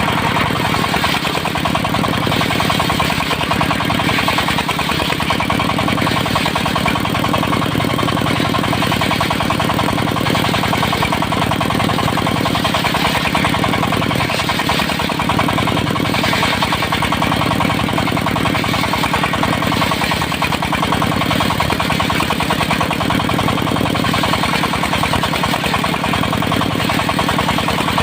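Diesel engine of a portable circular sawmill running steadily with an even, fast chug.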